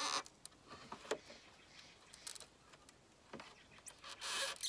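A screwdriver prying at the plastic-mounted chrome trim of a Mini Cooper's lower front grille: scattered small clicks and scrapes of metal on plastic, with a louder rasping scrape about four seconds in.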